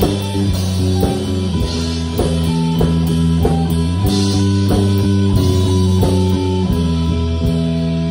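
Live rock band playing: electric guitars hold chords over a drum kit, with cymbal crashes every couple of seconds.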